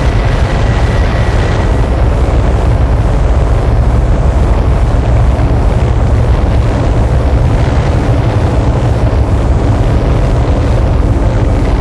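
Noise music: a loud, dense, unchanging wall of distorted noise, heaviest in the bass, with no beat or melody. A faint thin high tone in the mix stops about a second and a half in.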